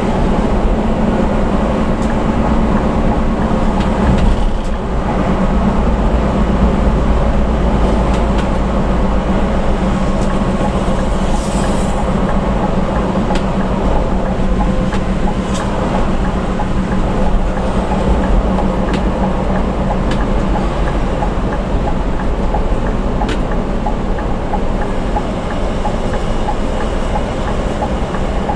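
Steady engine drone and road noise inside a vehicle travelling at highway speed, with a low hum and a few light clicks.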